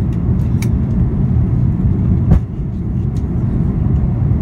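Steady low rumble inside the cabin of an Airbus A340-300 on approach, with one heavy thump a little over two seconds in as the landing gear goes down.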